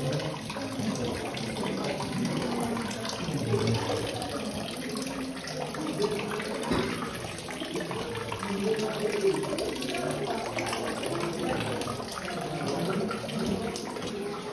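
Cave spring water falling in a thin stream from the rock face and splashing onto the stones below, a steady trickling and splashing.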